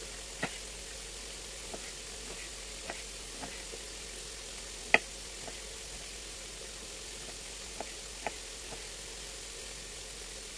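Scattered light clicks and taps at irregular intervals over a steady hiss, with one sharper click about five seconds in.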